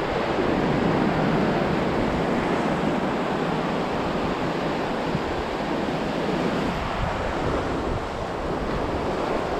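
Ocean surf breaking and washing over the beach in a steady rush, with wind buffeting the microphone.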